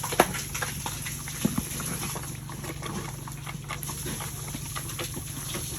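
Pigs feeding: many small irregular clicks and smacks of eating, a few louder near the start and about a second and a half in, over a steady low hum.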